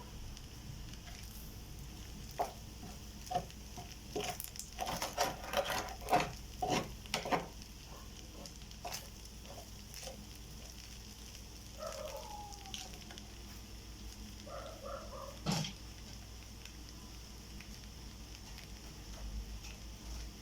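Rice frying in a pan, with a spatula scraping and clacking against the pan in a busy run of strokes for several seconds early on. A couple of short animal calls and a single sharp knock come later.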